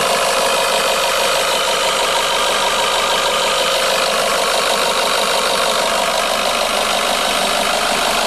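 Renault Mégane 2.0 engine idling, with a steady fast clatter from the variable valve-timing camshaft pulley. The pulley has excessive play.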